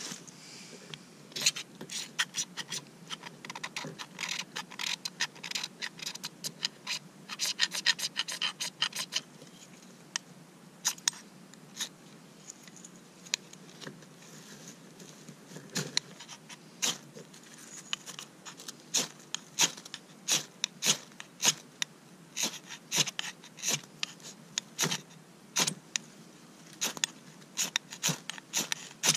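Knife spine scraped again and again down a ferro rod (fire steel), throwing sparks into dry tinder to light a campfire: short, sharp rasping strikes in irregular clusters, coming faster and more evenly near the end.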